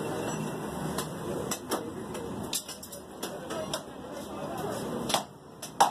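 Background chatter of several voices in a busy meat shop, with scattered sharp knocks, the loudest a pair near the end.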